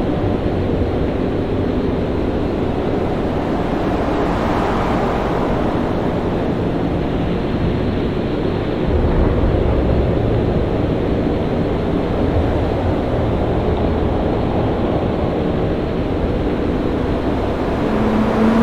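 Storm at sea: a steady roar of waves and wind, swelling briefly about four to five seconds in, with deeper rumbling surges around the middle.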